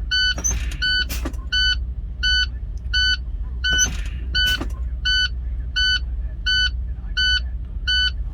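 International ProStar truck idling while its low-air-pressure warning beeps steadily, about every 0.6 s, with the air system drawn down below the warning point. Twice there is a short hiss of air.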